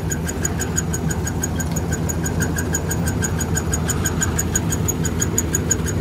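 Old Allis-Chalmers combine harvester running with its threshing gear engaged: a steady engine hum under a fast, even squeak, a bit of a squeak from the machinery.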